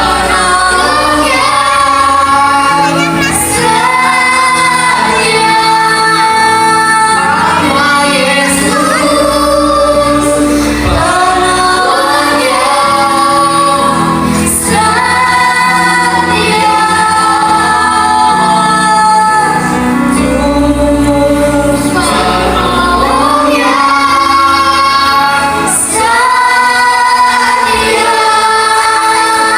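Female vocalists singing a song together over music accompaniment.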